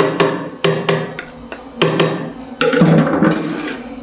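Metal cookware knocking and scraping as chicken curry is tipped from a pot over rice in a steel cooking pot: a string of sharp, irregular clanks, then a rougher scrape about three seconds in.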